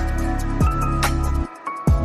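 Electronic background music with a deep held bass, booming kick drums that fall in pitch, and crisp hi-hat ticks. The bass drops out for a moment about three-quarters of the way in, then the beat comes back.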